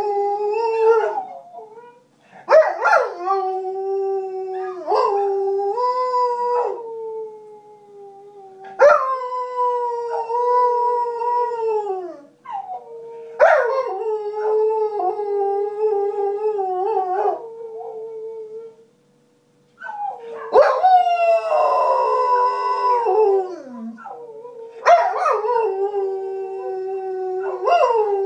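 A nine-month-old Groenendael (Belgian Shepherd) puppy howling: about six long howls with short breaks between them. Each howl holds a fairly steady pitch, and several slide down at the end.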